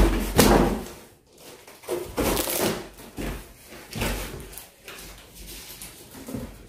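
Handling noise from drum seeder parts being moved about: a few separate knocks and scrapes, the loudest just after the start.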